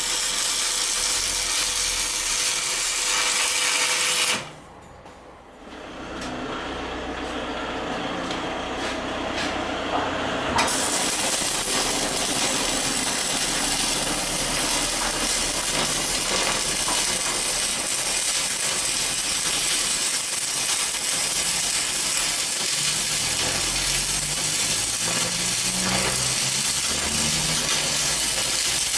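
Homemade belt grinder running with a steady, even rushing noise. About four seconds in the sound drops away suddenly, then builds back up over the next several seconds to the same steady level.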